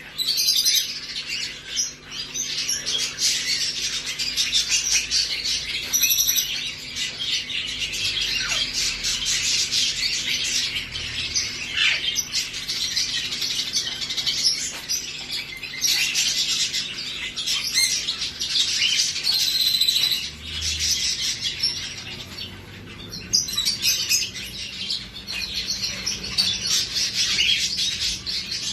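Many parrots chirping and squawking at once: a dense, continuous high chatter with no pauses.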